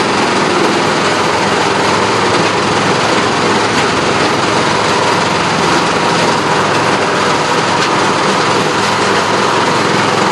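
Haybuster IG-11 tub grinder running steadily under load, its 300-hp John Deere six-cylinder diesel engine driving the hammermill while ground material pours off the discharge conveyor.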